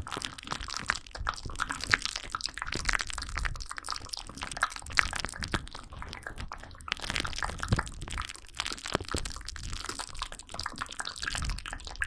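Close-miked ASMR mouth sounds: a continuous run of wet clicks, smacks and crackles.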